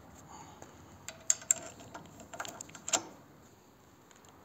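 Links of an old motorcycle roller chain, on a homemade chain wrench, clinking against a steel hex nut and the wrench's pipe handle as the chain is wrapped around the nut. A cluster of sharp metal clicks runs from about one to three seconds in.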